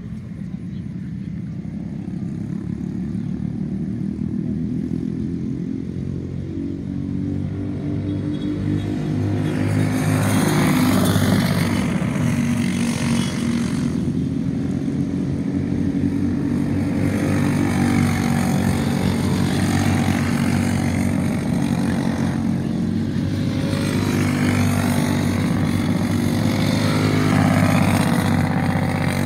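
Racing go-kart engines running at speed as karts pass along the track, rising and falling in pitch and growing louder about ten seconds in.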